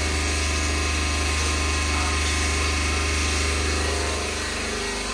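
A milking machine's vacuum pump motor running with a steady hum. Near the end the low drone changes to a fast pulsing.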